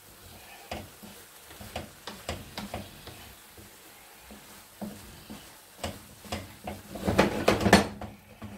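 Wooden spoon stirring a chopped fish, tomato and onion filling in a frying pan, with irregular knocks and scrapes against the pan that grow louder and quicker near the end.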